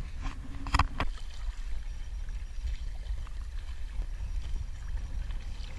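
Paddling an inflatable kayak on open water: the paddle blades dip and splash, with a couple of sharp knocks and splashes about a second in and fainter water trickle after, over a low steady rumble.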